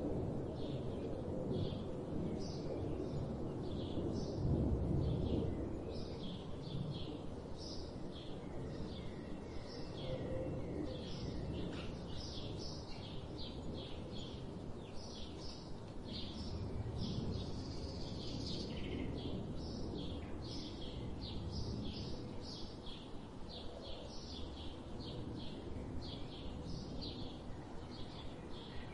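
Many small birds chirping and calling in a dense, unbroken chorus of short, high notes, over a steady low background rumble that eases after the first few seconds.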